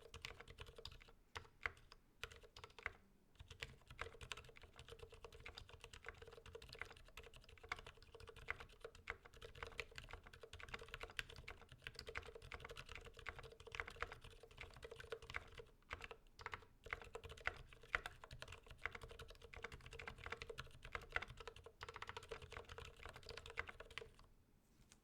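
Continuous typing on an IDOBAO ID80 75% mechanical keyboard with lubed Gateron silent black linear switches and HK Gaming 9009 PBT keycaps: a quiet, fairly silent patter of keystrokes in a steady, irregular stream. The typing stops about a second before the end.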